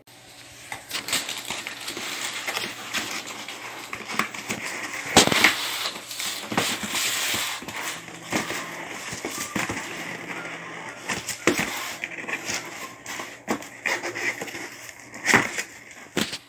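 Cardboard box and plastic packing being handled and rummaged through, a continuous rustling and crackling with scattered sharp clicks and knocks. The knocks are loudest about five seconds in and again near the end.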